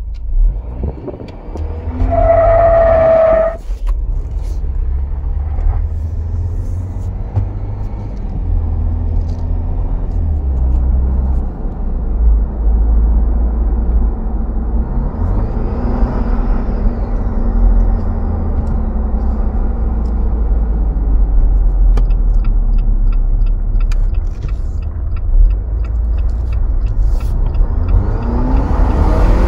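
Jeep Wrangler heard from inside the cabin while driving under throttle, a steady low engine and road rumble that steps up and down in level. A brief high tone sounds about two seconds in, and the engine revs up with rising pitch near the end.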